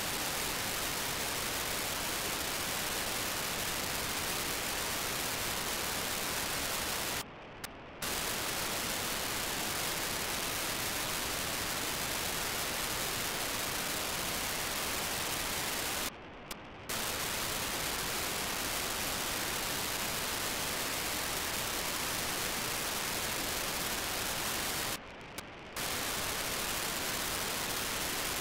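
FM receiver static from an RTL-SDR tuned to BlueWalker-3's 437.5 MHz downlink: a steady hiss that quiets three times, about every nine seconds, for just over half a second each. Those short quiet spells are the satellite's 2400-baud FSK telemetry bursts capturing the receiver, with the sound held below the upper hiss.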